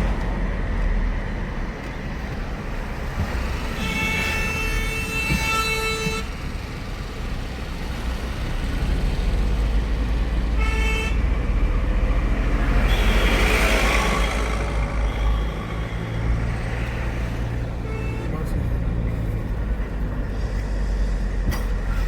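Road traffic: a steady engine and road rumble, with a car horn held for about two seconds some four seconds in and tooted briefly near eleven seconds, and a vehicle swishing past a couple of seconds later.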